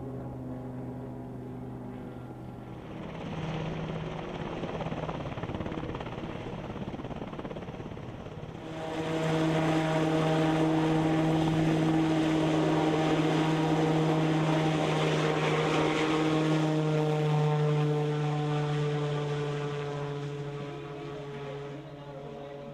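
Piasecki X-49A SpeedHawk compound helicopter flying low, its rotor and engines giving a steady droning hum mixed with the rush of its ducted tail propeller. The sound jumps louder about nine seconds in, eases off toward the end, then stops abruptly.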